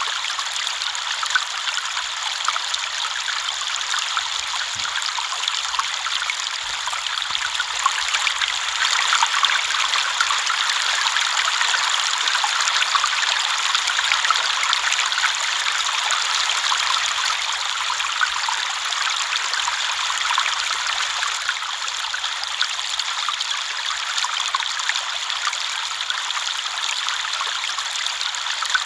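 River water flowing over stones: a steady rushing babble with fine splashes and trickles.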